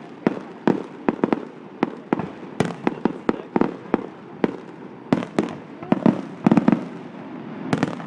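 Fireworks going off: an irregular run of sharp bangs, several a second, with quick clusters of rapid pops twice near the end.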